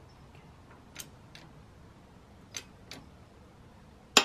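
Hydraulic shop press being pumped to force out a jackshaft bearing: a few scattered light clicks about a second apart, then one sharp loud crack near the end as the seized, already-destroyed bearing shifts under the load.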